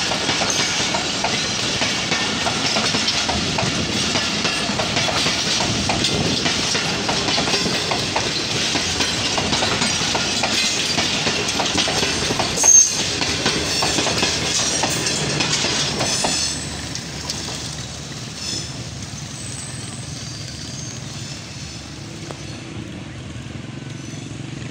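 Passenger coaches of a train passing close by, their wheels clattering over the rail joints, with one sharp knock about halfway. About two thirds of the way through the noise drops off suddenly as the last coach passes, leaving a fainter rumble as the train moves away.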